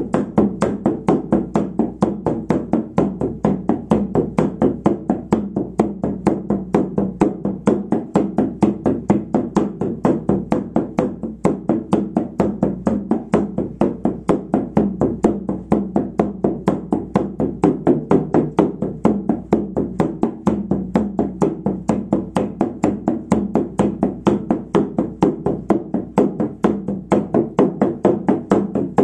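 Hand-held frame drum struck with a beater in a fast, even beat of about four strokes a second: the steady, unchanging rhythm of shamanic journey drumming.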